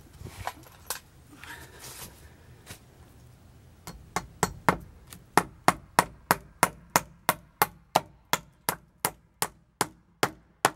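Claw hammer striking a log fence rail at its post to fasten it. After a few seconds of faint handling knocks, a steady run of sharp hammer blows begins about four seconds in, about three a second.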